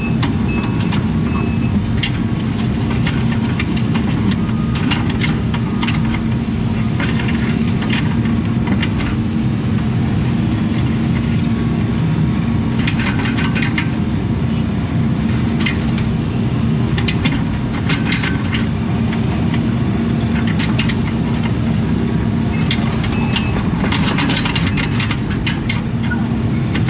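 Case CX80C mini excavator's diesel engine running steadily under work, with intermittent clanks and rattles as the machine digs and pulls soil.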